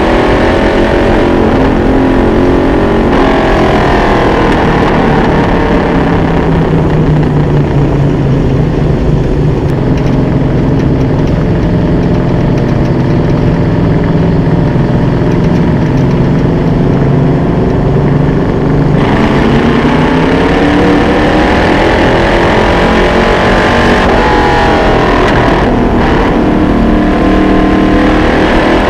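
Vintage dirt late model race car's V8 engine at race pace, heard close from the car. The revs drop off going into the turns and climb again down the straights: falling just after the start, rising a few seconds in, holding steady through the middle, dropping about two-thirds through and climbing again near the end.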